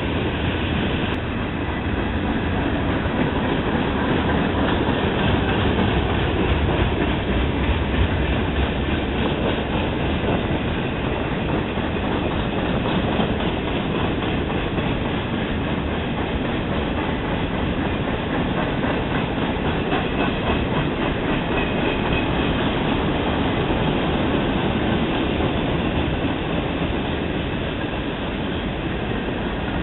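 Freight train of boxcars rolling past at close range: a steady rumble with the rhythmic clickety-clack of steel wheels over rail joints.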